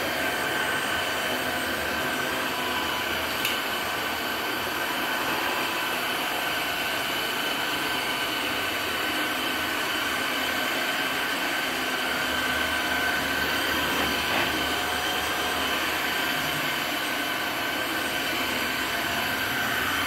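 Tineco Floor One S5 cordless wet-dry floor washer running in wash mode as it is pushed over tile: a steady suction-motor whine with several high steady tones over a rush of air.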